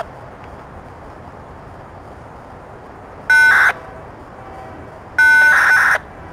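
Two loud horn blasts, a short one about three seconds in and a longer one near the end, each a steady chord of several notes, over the steady noise of a freight train rolling past.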